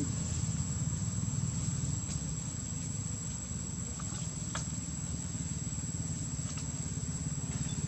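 Steady forest ambience: a constant high-pitched insect drone over a low steady rumble, with a few faint clicks.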